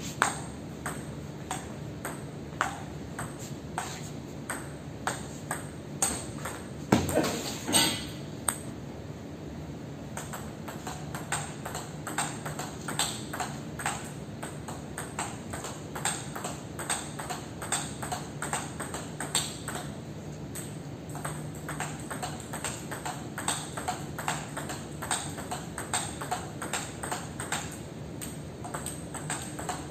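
Table tennis rallying: the ball clicks again and again off the rackets and the table in a quick, even rhythm of about two to three strikes a second. A few strikes are louder, around seven to eight seconds in.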